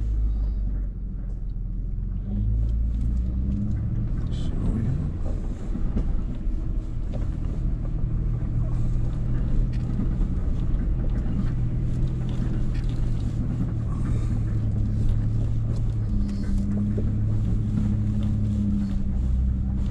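Nissan Frontier Pro-4X's V6 engine running at low revs as the pickup crawls over a rough, rocky trail. The engine note shifts a few times, over frequent small knocks and rattles from the truck. Heard inside the cab.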